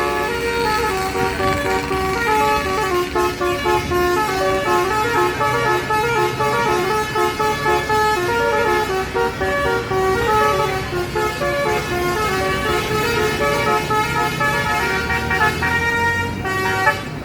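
Basuri 'telolet' multi-tone bus horn playing a fast melody of short notes that step up and down, cutting off near the end.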